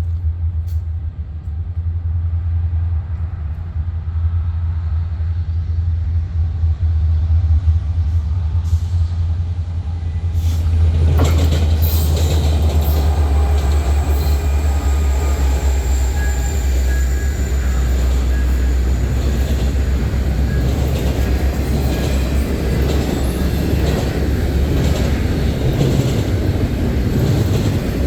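CN freight train with diesel locomotives: a deep, steady engine rumble, then from about eleven seconds in the louder rattle and rumble of cars rolling past, with a faint thin wheel squeal.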